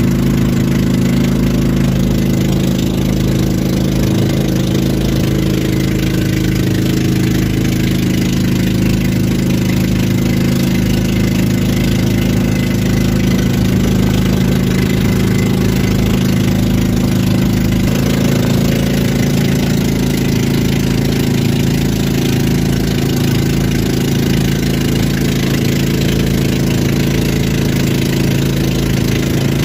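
The outrigger boat's engine runs steadily while the boat is under way. Its pitch shifts slightly about two-thirds of the way through.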